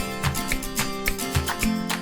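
Background music led by plucked acoustic guitar, with a steady beat.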